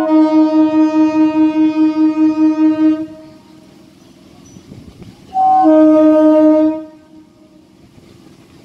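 Two blasts of an Indian Railways EMU local train's horn as the train approaches. A long blast with a wavering, pulsing level ends about three seconds in. A shorter blast of about a second and a half follows about five and a half seconds in; it begins with a brief higher note that drops to the main tone.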